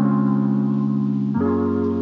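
Background music: soft sustained chords changing about every second and a half.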